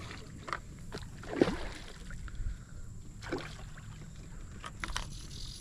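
Water splashing at the surface beside a boat as a hooked carp thrashes, two splashes about two seconds apart, with a few light clicks and knocks over a low steady rumble.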